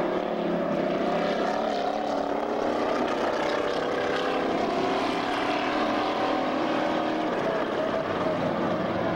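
Several dirt-track stock cars' engines running as they circle the oval, heard together as a steady drone with tones that waver as the cars move around the track.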